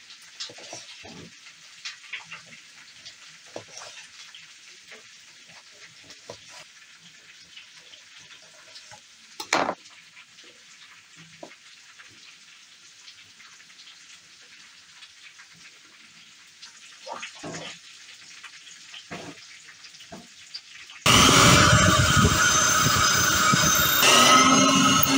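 A knife slices a lemon on a plastic cutting board, with light taps and a sharp click over a steady frying sizzle. About 21 seconds in, a loud electric drill starts boring into a wooden shelf board and runs almost to the end, easing off briefly once.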